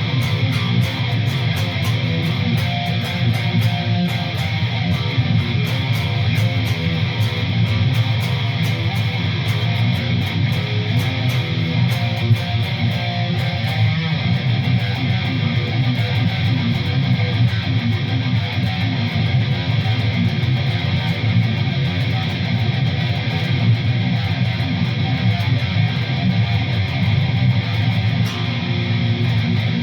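ESP LTD Arrow Black Metal electric guitar with EMG pickups, played on a distorted death-metal rhythm tone through a Line 6 HD500X, Rocktron Velocity 300 power amp and Laney Ironheart cabinet. The riffing goes on without a break, heavy in the low end.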